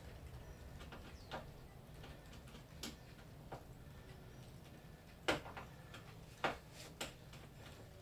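Scattered small clicks and taps of a screwdriver and screws as the remaining screws come out of an electronic keyboard's plastic casing, about seven in all, the loudest about five seconds in.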